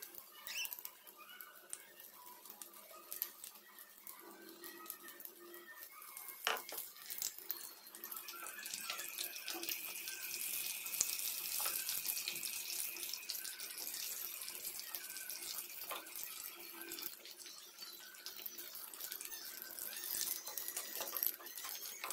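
Battered brinjal fritters deep-frying in hot oil, the oil sizzling and crackling, growing louder partway through. A single sharp knock about six and a half seconds in.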